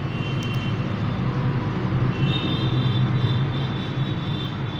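Steady low hum and rumble with an even hiss from the gas stove under a pot of water and soaked rice heating back to the boil, with a faint high whine joining about halfway through.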